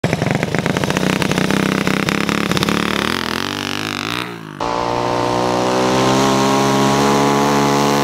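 Homemade mini bike's small engine revving hard as it pulls away, its pitch wavering as it goes by. After a sudden break about four and a half seconds in, it runs steadily at high revs.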